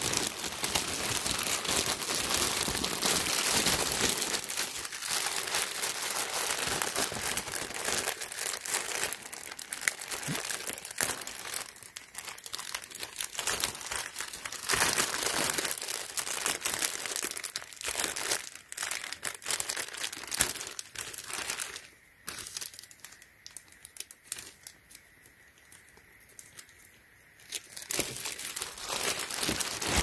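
Clear plastic poly bag crinkling and rustling as hands pull it open and handle it. The crinkling drops away for about five seconds around two-thirds of the way through, then starts again.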